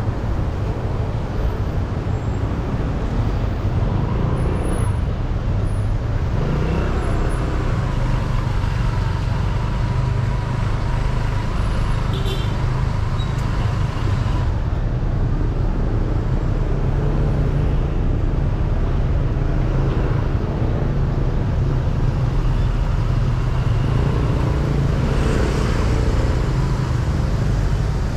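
Street traffic noise: a steady low engine rumble and road noise from passing vehicles.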